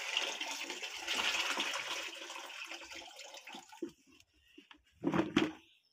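Water poured off peeled potatoes from a plastic bowl, splashing into a plastic bucket, thinning to a trickle and dying away about halfway through. A couple of brief knocks near the end.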